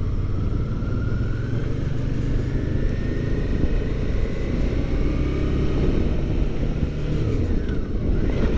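Motorcycle engine running as the bike rides along, its pitch rising slowly as it gathers speed over the first several seconds, then holding steady.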